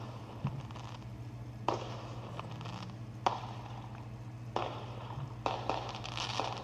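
Irregular sharp pops and clicks, roughly one every second, over a steady low hum.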